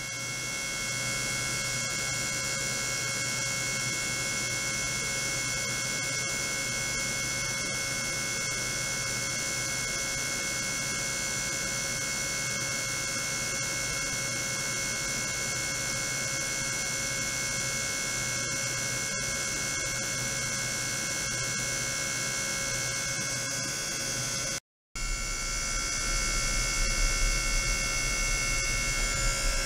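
Ultrasonic probes on a water-filled plastic tank, driven by function generators, giving a steady electronic whine of many held tones over a low hum. About 25 s in the sound cuts out for a moment, then returns with a deeper hum added and slightly louder.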